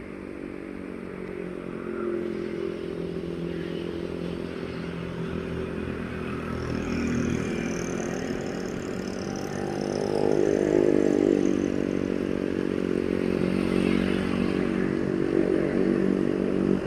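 Scania K410IB bus's diesel engine running as the bus drives past, growing louder through the first ten seconds, its pitch rising a little about ten seconds in, then holding steady.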